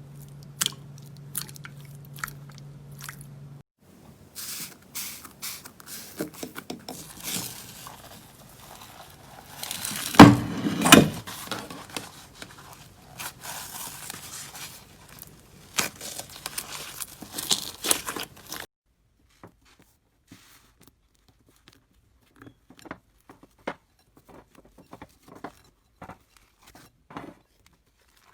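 Slime being squeezed and pressed by hand, with close-up crackling, popping and squishing. The loudest bursts come about ten seconds in, and only sparse quiet clicks remain in the last third.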